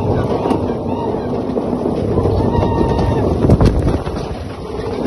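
ATV engine running as it drives along a rough dirt trail, with wind buffeting the microphone. A sharp knock comes about three and a half seconds in, and the noise eases briefly near the end.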